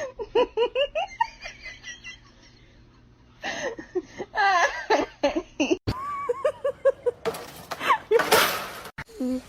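Laughter in short rhythmic bursts, with squealing voice-like notes, broken by a couple of sudden cuts.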